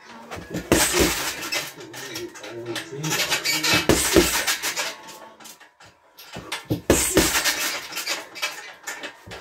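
Boxing gloves punching a heavy bag in repeated cross–lead hook combinations: sharp thuds come in three bursts, about a second in, around four seconds and about seven seconds in, with a short pause between bursts.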